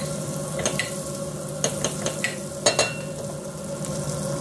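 Butter sizzling as it melts in a pot, stirred with a spatula that clicks against the pot a few times, the loudest clicks a little under three seconds in. A steady hum runs underneath.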